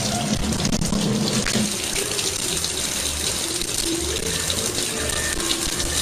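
Water running steadily, like a tap left on.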